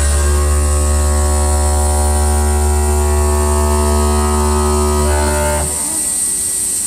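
CNC stone machine running with a loud, steady motor hum, then cutting off abruptly about five and a half seconds in, leaving a thin high whine.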